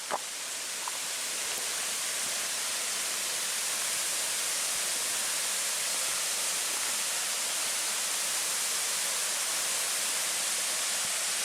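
Steady rush of a tall waterfall pouring into a rocky pool below, an even hiss that swells slightly in the first couple of seconds and then holds.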